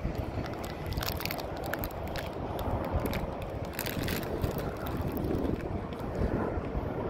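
Wind rumbling on the microphone over the distant running of go-kart engines on the track, with a few sharp clicks about a second in, near the middle and around four seconds.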